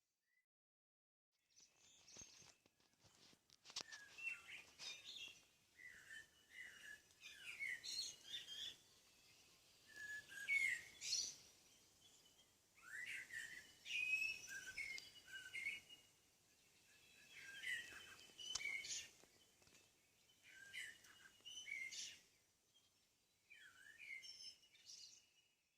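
Hot knife cutter melting through layers of synthetic fabric, cutting and welding them together. It comes in repeated strokes about every three to four seconds, each a short cluster of faint squeaks and crackles.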